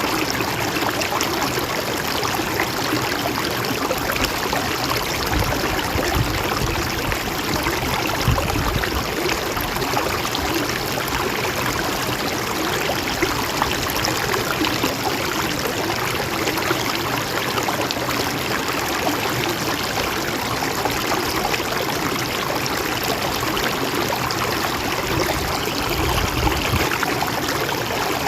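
Mountain stream running steadily over rocks, a continuous even rush of flowing water with small trickles and splashes.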